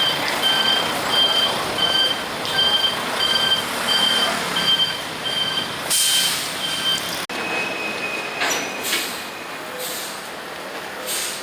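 Japanese-made ten-year residential smoke alarm sounding: a high-pitched electronic beep repeating about every 0.6 s, which cuts off about seven seconds in. A steadier tone follows for a second or so, along with a few short rustling bursts.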